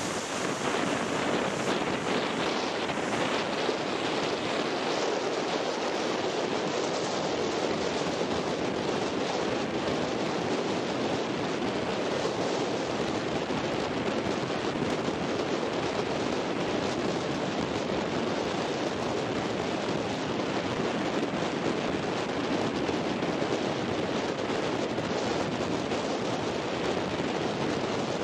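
Steady rush of strong wind blowing across the microphone, mixed with choppy surf.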